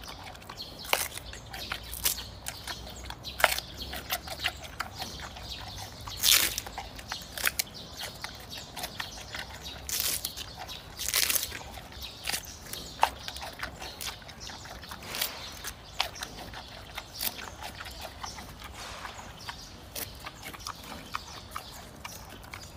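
Giant panda biting and chewing a bamboo shoot: irregular crunching and cracking of the fibrous shoot, with some snaps much louder than the rest.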